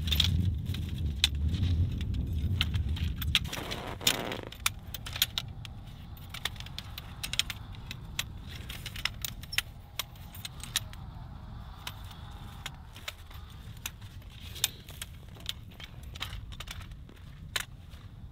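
Wind rumbling on the microphone for the first few seconds, then stopping. Throughout, a run of sharp irregular clicks and clinks from tent gear being handled.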